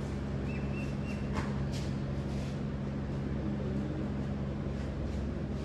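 A steady low mechanical hum, even and unchanging, like a machine or motor running.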